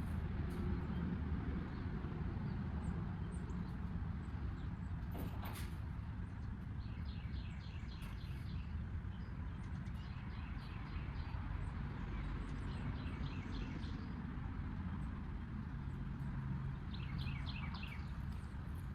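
Steady low rumble, with a bird chirping in quick runs of short high notes several times and one sharp knock about five seconds in.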